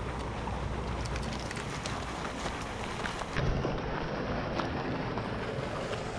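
Steady wind rumble on the microphone, with scattered faint clicks and taps and a brief louder bump a little over three seconds in.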